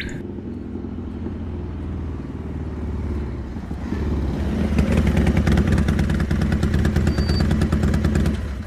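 Motorcycle engine running as the bike rides in, getting louder about four seconds in as it comes close, then running steadily at close range.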